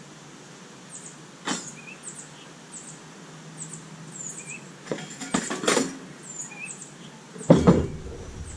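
Small birds chirping over and over in the background. Hard objects knock and clatter: one knock about a second and a half in, a run of clicks and knocks in the middle, and a louder cluster of clattering knocks near the end as things get knocked over.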